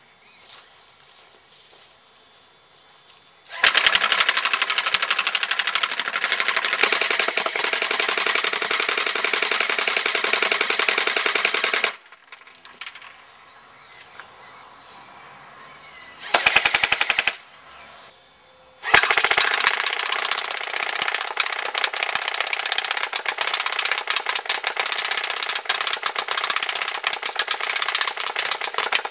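Homemade airsoft minigun, built around an AIM M4 electric airsoft gun, firing full-auto in rapid clatter: a long burst of about eight seconds starting a few seconds in, a short burst later, then a long burst through the end.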